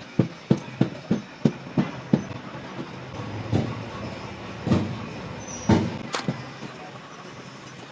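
A quick run of sharp knocks, about three a second for two seconds, then four heavier single thumps spaced a second or so apart, typical of work on a cylinder head.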